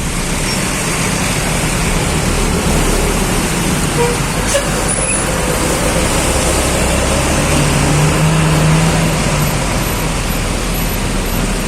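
Road traffic noise: a steady rush of vehicles and wind, with a low engine hum that swells about eight seconds in.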